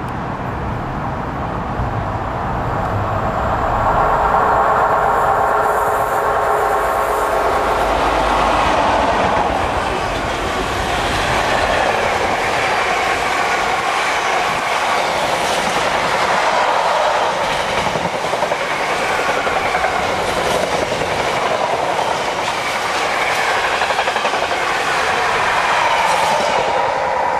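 Container freight train passing at speed. A steady tone and low rumble build over the first several seconds as it approaches. A long rake of container wagons then follows, with continuous wheel rumble and a rhythmic clickety-clack over the rail joints, easing near the end.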